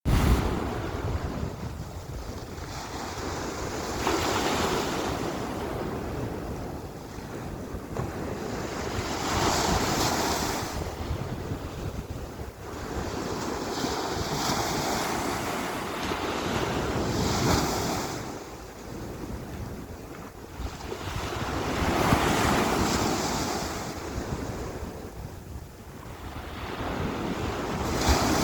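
Sea waves washing in and breaking, the noise swelling and fading every few seconds, with wind rumbling on the microphone.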